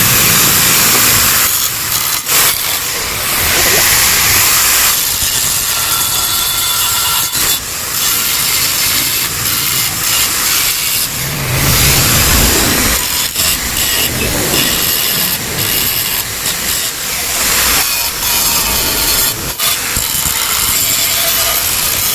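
Metal of a Yamaha RX-King motorcycle exhaust muffler being cut or ground with a workshop tool while it is opened up: a harsh, steady hissing noise broken by short pauses.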